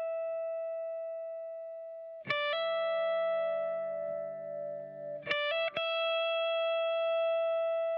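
Les Paul electric guitar through The Ant compressor pedal and an Orange Retro 50 valve amp, played clean: a high note held with long even sustain, a chord struck about two seconds in that rings with a slow wavering, then a few quick picked notes about five seconds in and another long held high note.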